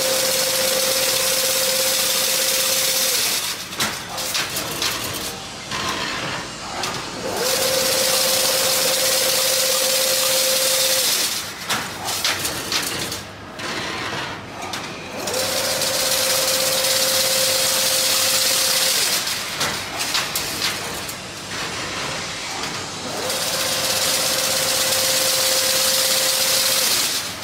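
Automatic chain link fence machine running through its weaving cycle. About three and a half seconds of steady whirring with a hum are followed by about four seconds of quieter clicking and clattering, and this repeats four times.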